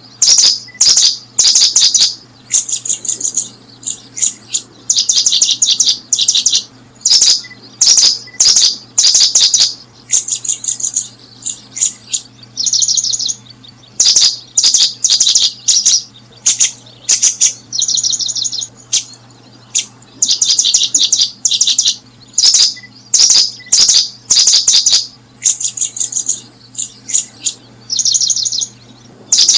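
Small bird chirping: clusters of quick high-pitched chirps repeating throughout, with short buzzy trills now and then.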